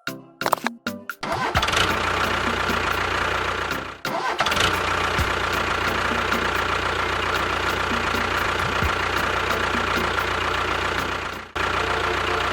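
A motor starting in a few stuttering bursts, then running steadily with a constant hum and whine. It drops out briefly twice.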